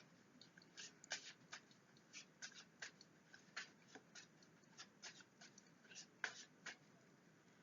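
Tarot cards being handled: faint, irregular slides and taps of cards against each other and the table, about twenty short clicks and swishes.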